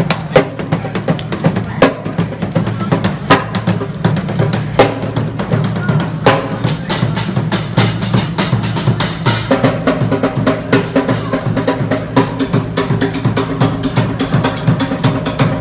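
A small drum kit played in a steady busking groove, with snare, bass drum and cymbal hits, and a fast run of rapid hits around the middle. A sustained pitched tone joins under the drumming about halfway through.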